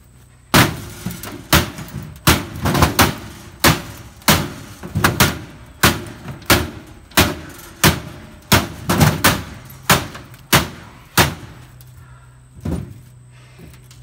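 Blade of a Ridge Runner tactical hammer-axe chopping again and again into the corner of an upside-down sheet-metal filing cabinet: about seventeen sharp metal-on-metal strikes, roughly one every two-thirds of a second, stopping about eleven seconds in.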